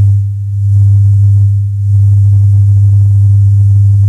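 Experimental electronic drone music played from cassette tape: a loud, deep, steady pure tone, dipping briefly in level twice in the first two seconds. A fainter higher tone comes and goes above it, with faint hiss.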